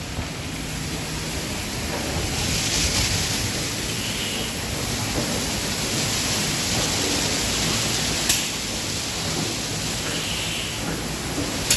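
Automatic tunnel car wash running: water jets spraying and spinning cloth brushes working over a car, a steady rushing wash noise. Two sharp clicks cut through it, one about eight seconds in and one near the end.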